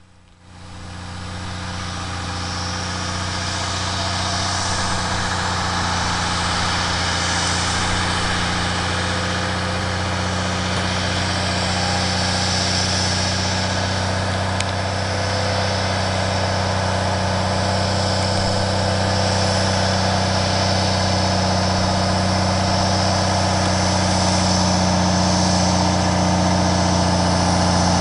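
Peterbilt log truck's diesel engine running steadily under load on an uphill grade, a low, even drone that fades in over the first few seconds and grows slightly louder near the end.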